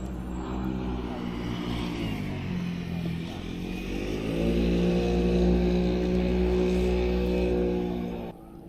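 A motor vehicle's engine running steadily. Its pitch rises about halfway through and holds, then it cuts off suddenly near the end.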